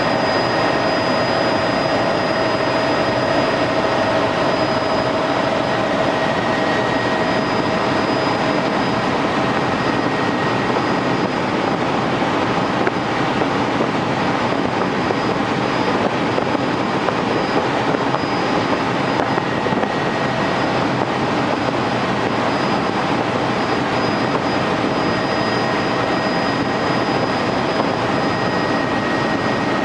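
Helicopter in flight heard from inside the passenger cabin: a steady, loud rush of engine and rotor noise with a few high whining tones held level throughout.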